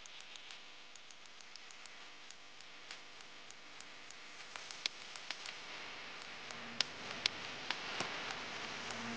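Outdoor ambience of a waiting crowd: a steady hiss that slowly grows louder, with many scattered sharp clicks that come more often and louder in the second half.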